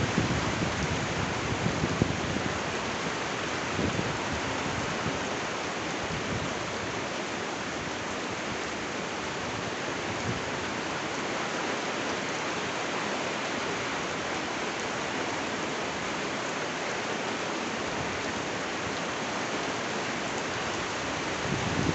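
Steady, heavy rain falling, an even dense hiss. A few louder low swells in the first four seconds and again near the end.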